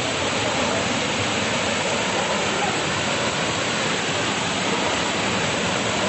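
Waterfall pouring onto rocks at close range: a loud, steady rush of falling water with heavy spray.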